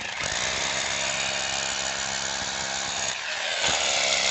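Electric drill running steadily while drilling into stone.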